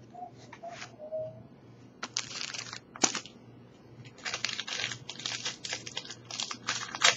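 Foil wrapper of a trading-card booster pack crinkling and tearing as it is opened, in irregular bursts from about two seconds in, growing busier toward the end.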